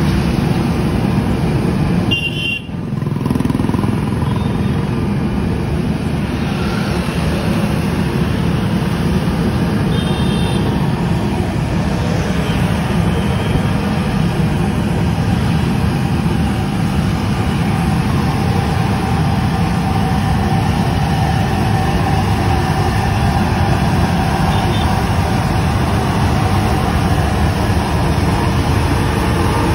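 Road sweeper truck running at crawling speed as it sweeps the gutter: a steady, loud drone from its engine and sweeping gear, mixed with passing road traffic. Short vehicle horn toots sound twice, a few seconds in and about ten seconds in.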